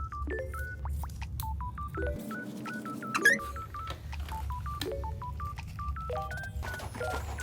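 Background music made of short, plinky electronic notes hopping in pitch, over a steady low bass. The bass drops out for about a second around the middle.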